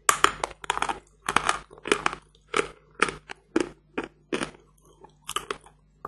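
A lump of hard natural chalk bitten and chewed: a bite at the start, then a run of sharp crunches about two a second, stopping about five and a half seconds in.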